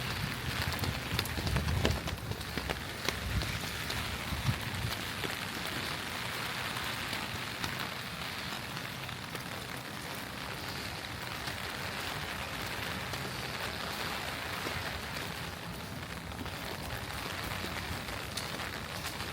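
Steady rain falling, with scattered sharp drop taps that are most frequent in the first few seconds.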